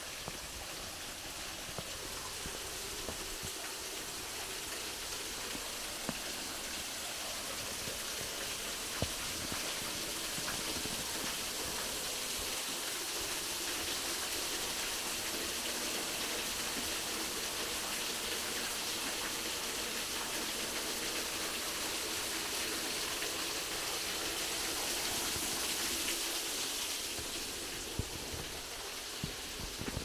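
Steady rushing hiss of water, growing louder about ten seconds in and easing again a few seconds before the end, with a few faint clicks.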